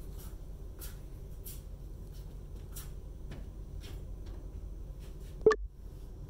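Steady low hum of lab room tone with faint scattered ticks. About five and a half seconds in, one sharp loud knock is followed by a brief dropout.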